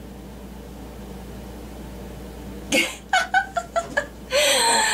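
A woman giggling in a run of short bursts that ends in a breathy laugh, after nearly three seconds of faint room hum.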